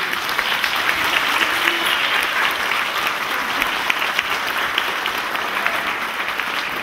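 Audience applauding: a dense clatter of many hands that starts abruptly and slowly tapers off.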